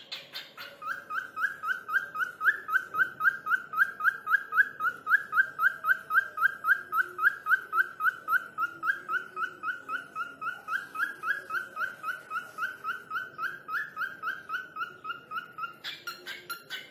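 Cockatiel calling in a fast, even series of short rising whistled chirps, about four a second, for some fifteen seconds; near the end the calls change to a different pattern.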